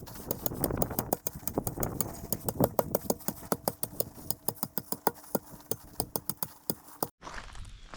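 Petrol plate compactor running and packing crushed rock: a steady engine note under rapid rattling impacts, several a second, from the vibrating plate on the stones. It cuts off abruptly about seven seconds in.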